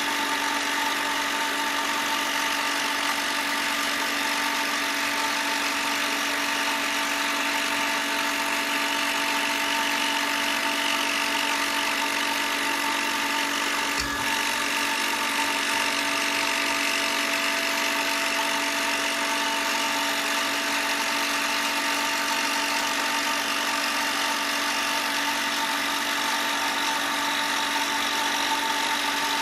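A power tool motor running steadily with an even whine, with a single brief tick about halfway through.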